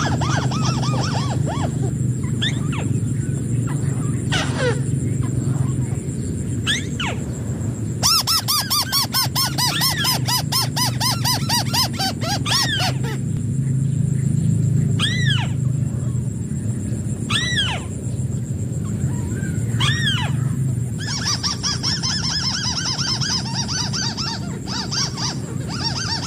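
White-browed crake calls: two long runs of rapid, repeated chattering notes, with three single down-slurred calls between them. A steady low hum runs underneath.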